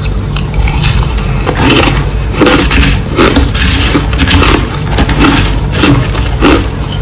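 Crushed ice being chewed close to the microphone: repeated crisp crunches, about one or two a second.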